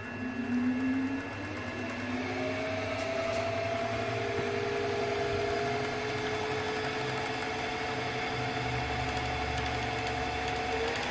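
Milling machine spindle starting up and running, spinning a Chrysler distributor with its cap off: a motor whine that rises in pitch over the first couple of seconds as it spins up, then holds nearly steady.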